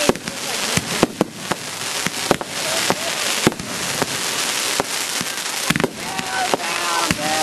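Aerial fireworks bursting overhead: a rapid, irregular string of sharp bangs over a continuous hiss.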